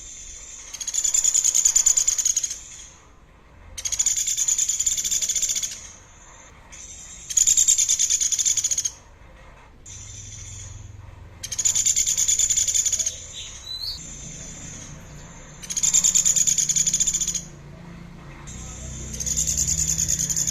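Songbird singing a loud, rapid, buzzy high trill about two seconds long, repeated six times at intervals of three to four seconds, with a thin steady high tone in the gaps between trills.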